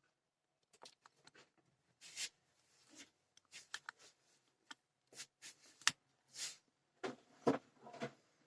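Scattered small clicks, taps and brief rubbing and scraping as parts are handled and fitted back onto a home theater amplifier circuit board, with a few sharper clicks near the middle.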